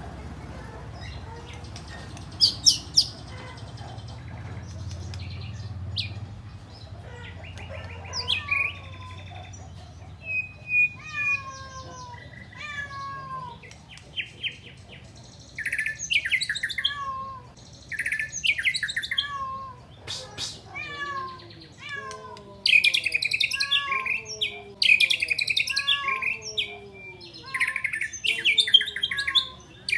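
White-rumped shama singing, working in phrases mimicked from the sikatan londo: sharp high chirps, buzzy trills and repeated down-slurred whistles. Sparse at first, the song comes thick and fast from about halfway on.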